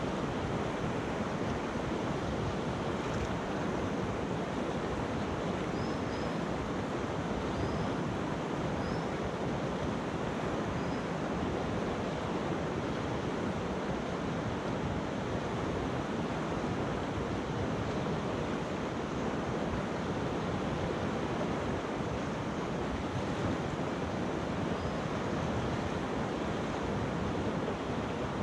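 River water rushing steadily over pebbles and stones.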